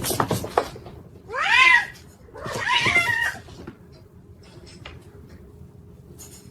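A cat meowing twice, each call rising then falling in pitch, after a few sharp clicks at the start.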